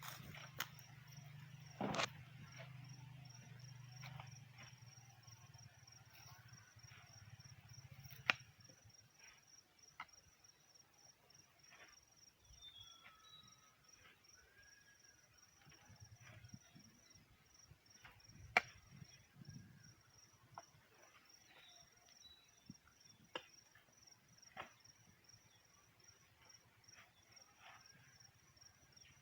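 Faint outdoor ambience: an insect chirping in a steady, fast-pulsing high trill, with a few scattered sharp knocks and a low hum that fades out about eight seconds in.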